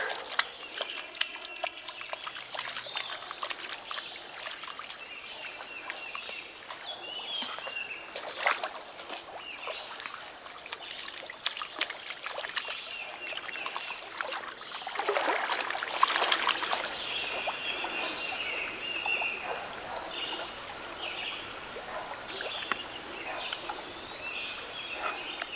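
River water splashing and trickling as dogs wade and swim, with a louder stretch of splashing about 15 seconds in. Birds chirp on and off.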